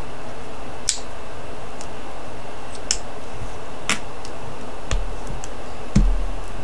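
Small glass and plastic craft pieces clicking and tapping as they are handled and set down on a cutting mat, about five separate clicks, the loudest a dull thump about six seconds in, over a steady hiss.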